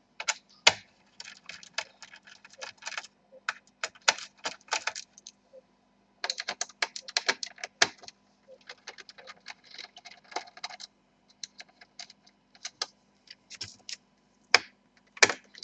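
Small screws and a screwdriver clicking and rattling against a laptop's plastic bottom case as its back screws are taken out, in short runs of quick irregular clicks with pauses between.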